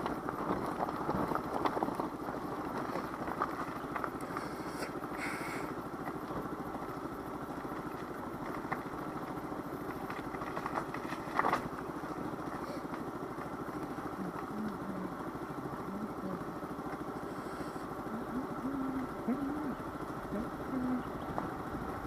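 Daelim Wity 100 small scooter's engine running steadily as it is ridden, a continuous drone with road noise. Brief knocks come about five and eleven seconds in.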